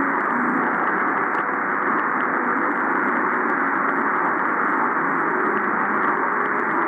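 Medium-wave reception on a Drake R8A communications receiver in lower-sideband mode: a steady hiss of band noise and static, cut off above about 2 kHz. A very weak long-distance AM broadcast signal on 1150 kHz sits faintly beneath it.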